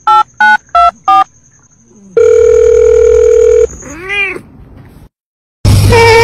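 Four quick telephone keypad beeps, then a steady phone tone held for about a second and a half, followed by a short meow from a cat that rises and falls in pitch. Near the end, after a brief silence, a different loud sound with a wavering tone over a low hum begins.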